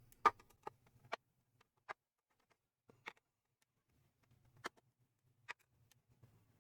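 Scattered light clicks and taps, about seven over several seconds, as screws are undone from the plastic bottom case of a Toshiba Satellite C70 laptop and handled. A faint low hum comes and goes underneath.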